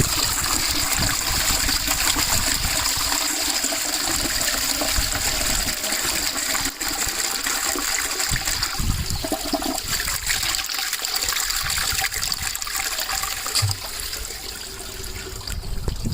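Qualitas Charlotte close-coupled toilet with a 7.5-litre cistern, flushing: water rushes steadily through the bowl and eases off slightly near the end.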